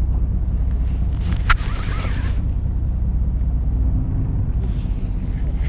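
Steady low rumble of a fishing boat's engine, with a single sharp click about a second and a half in.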